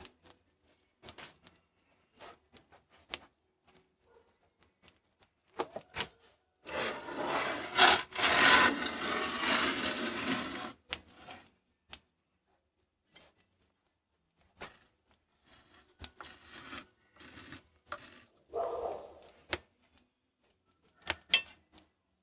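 Cookware being handled in a wood-fired brick oven: scattered clicks and knocks of metal pans, and one loud scrape lasting about four seconds, starting about seven seconds in.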